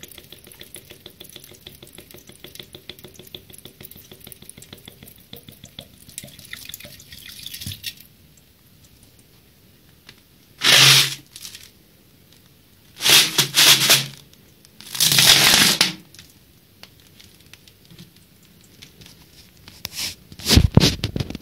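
Water trickling and dripping into a sink from a plastic cycling water bottle, then several loud hissing spurts a few seconds apart as the bottle is squeezed, and heavy knocks from handling the bottle near the end.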